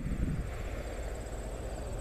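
A low steady rumble, with insects chirping faintly in a fast, even pulse high above it.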